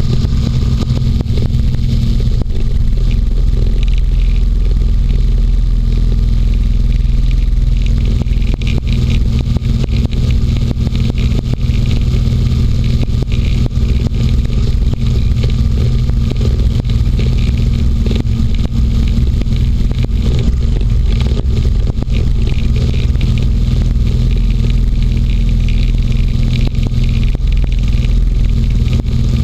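Inflatable hovercraft's engine and caged propeller running steadily at cruising speed, a loud, even drone.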